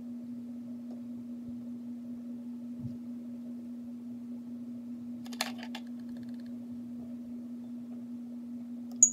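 Room tone dominated by a steady low hum, with a faint knock, a few small clicks partway through and one sharp click near the end.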